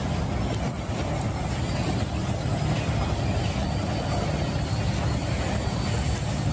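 A steady low rumble with a hiss over it, unbroken throughout.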